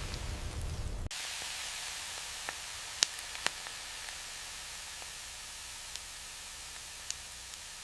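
Steady hiss. A low rumble cuts off about a second in, and a few sharp clicks sound afterwards.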